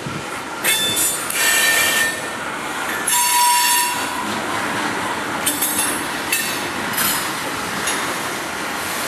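Freight cars, rusty tank cars among them, rolling slowly during switching, their steel wheels giving several short, high squeals against the rails over a steady rumble and clatter of wheels on track.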